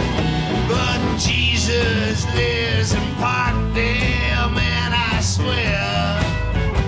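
Live folk-rock band playing a song, with a drum kit keeping time under guitars and bass, and a lead line bending in pitch over the top.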